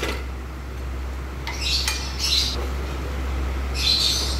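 Bird squawking in short high-pitched calls, two close together and a third near the end, over a steady low hum.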